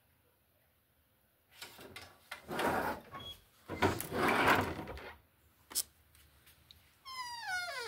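Rustling and bumping of handling with a door being worked, including a sharp click, then near the end a creak that slides down in pitch for about a second.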